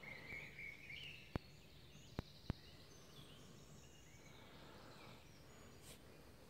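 Faint woodland birdsong, a few high chirping phrases mostly near the start. Three sharp clicks come a little after a second in.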